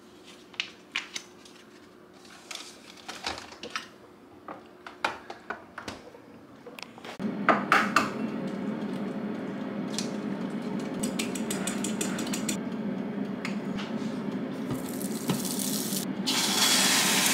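A spoon clinking and tapping against a ceramic bowl as egg is beaten and stirred, with small clicks of handling kitchenware. About seven seconds in, a steady whooshing hum comes on suddenly and runs under the tapping. A louder hiss rises near the end.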